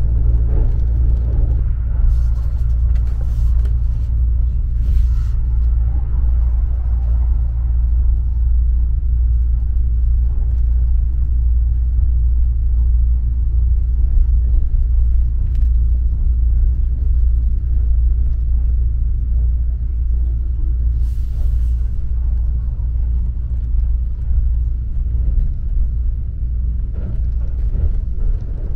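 Steady low running rumble of a Kintetsu Hinotori electric train, heard from inside its passenger cabin while it travels. A few brief higher-pitched noises come over it a few seconds in and again about two-thirds of the way through.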